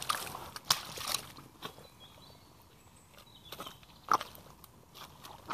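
Rubber boots stepping through wet mud and shallow water, squelching and splashing in a few separate steps, with a quieter stretch in the middle.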